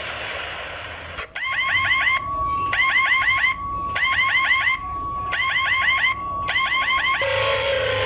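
Electronic emergency alarm tone: bursts of quick rising chirps, about six to a burst, over a steady high beep, with short breaks between bursts. It cuts in about a second in after a crackling hiss, and gives way to a falling siren tone near the end.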